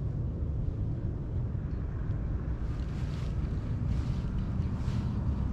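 Wind buffeting the microphone: a steady low rumble, with faint hissing swells every second or so.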